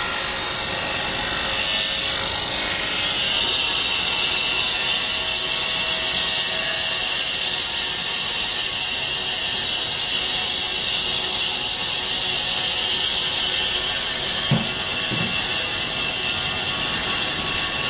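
Vertical band-knife foam-cutting machine running with a steady high hiss as its blade slices through black rubber-foam insulation tubing. Two short soft knocks sound near the end.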